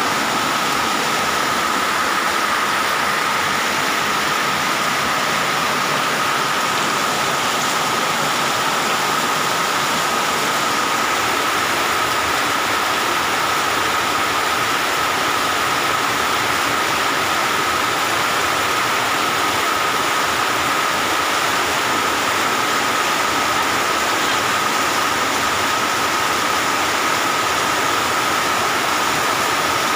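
Steady heavy rain pouring down, an even hiss with no let-up, with a steady high-pitched tone running through it.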